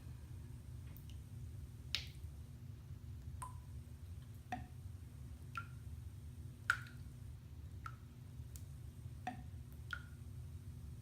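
Bathtub faucet dripping into the bathwater, a drop about once a second, each a short plink.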